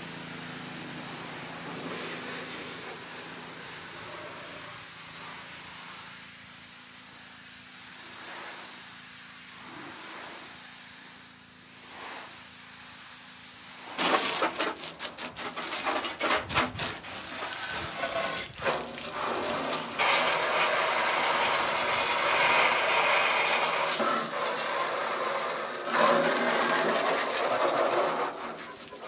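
Pressure washer: a steady hiss with a low hum at first, then about halfway through the jet is turned onto the rusty sheet-metal body of a 1965 VW Beetle, a much louder spraying hiss that rises and falls as it sweeps over the panels, blasting off dirt and rust.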